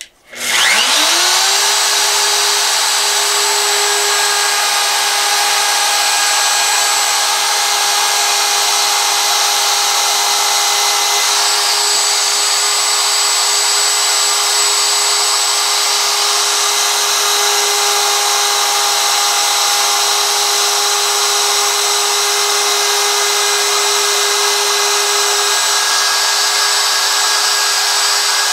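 DeWalt DW618 router starting up and spinning up to speed within the first second, then running steadily with a high whine and hiss as its bit cuts into the wooden sign blank.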